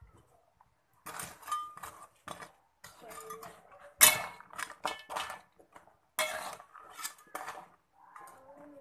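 Metal spatula stirring and scraping through noodle broth in a metal wok, with irregular clanks against the pan. The loudest clanks come about four seconds in and again about six seconds in.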